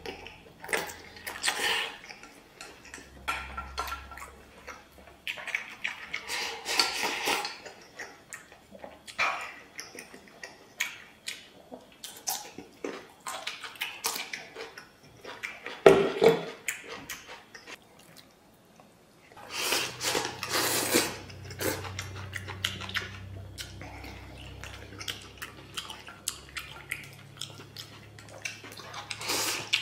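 Mukbang eating sounds: braised pork intestines slurped in whole and chewed, with chopsticks clicking against a stainless-steel rice bowl. One sharp knock about halfway through.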